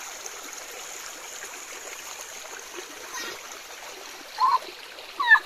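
Steady trickling rush of a small forest stream. Near the end two short, high-pitched calls stand out as the loudest sounds.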